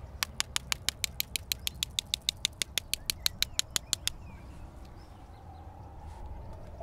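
A rapid, even run of sharp, dry clicks, about six a second, lasting about four seconds and then stopping abruptly.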